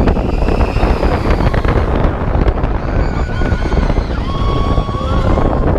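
Steel roller coaster train, the Seven Dwarfs Mine Train, running along its track: a heavy low rumble with wind buffeting the microphone, and a few faint high tones held for about a second above it.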